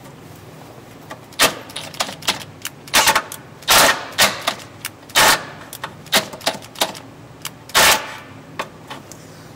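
Handheld drill with a 3/8-inch bit enlarging a bolt hole in metal, run in about a dozen short, irregular bursts as the bit bites and catches.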